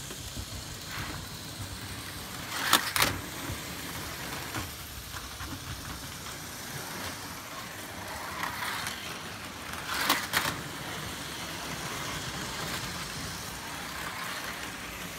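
Carrera slot cars running on plastic slot-car track, a steady buzzing rattle. It grows into two louder clattering bursts, about three seconds and about ten seconds in.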